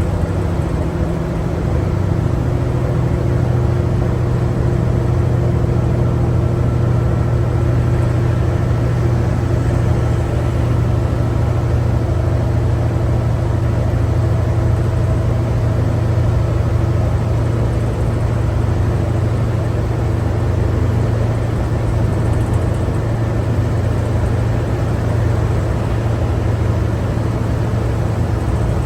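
Cummins ISL9 diesel engine of a New Flyer D60LFR articulated bus running under way, heard inside the cabin as a steady low drone with road noise. The engine note drops once about two seconds in, then holds steady.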